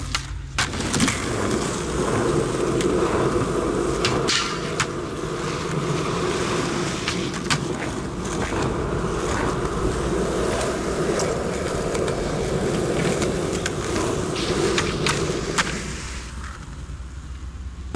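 Skateboard wheels rolling over concrete with a steady rumble, broken several times by sharp clacks of the board hitting the ground. The rolling fades over the last couple of seconds.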